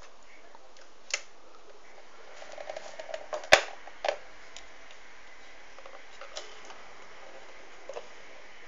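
Mechanical clicks and clacks from the control lever and dial of a Singer 533 sewing machine being moved by hand between settings, with the motor off. There is a cluster of clicks a few seconds in, the loudest of them a sharp click about three and a half seconds in, and a few fainter clicks near the end.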